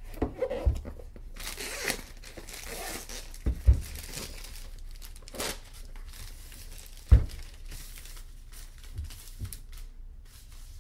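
Clear plastic shrink wrap being ripped and crinkled off a cardboard box, with a few dull thumps as the box is handled; the loudest thump comes about two-thirds of the way through.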